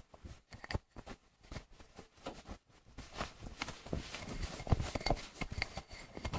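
Cloth tea towel rubbing a drinking glass dry, with irregular soft knocks as the glass is turned in the hands. The rubbing grows busier and louder about halfway through.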